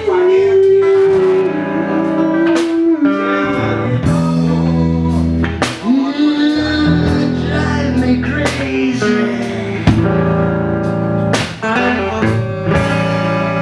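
Live reggae band playing: guitar and bass under long held melody notes, with regular sharp drum-kit hits.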